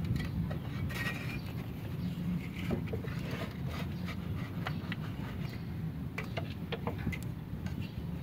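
Plastic MIG wire spool being fitted by hand onto the wire feeder's spindle: scattered light clicks and knocks of plastic against the hub, over a steady low hum.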